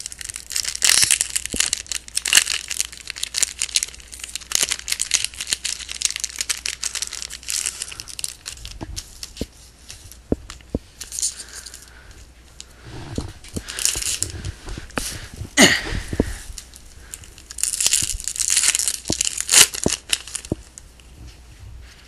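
A Bowman Platinum card pack's wrapper being torn open and crumpled by hand, in irregular bursts of crinkling with short pauses between them.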